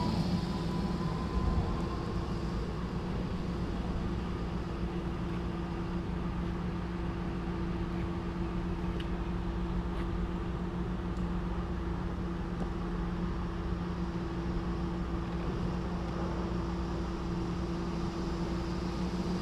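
Steady low mechanical hum made of two held tones over a background of outdoor noise, with a faint high whine that rises slightly and fades in the first couple of seconds.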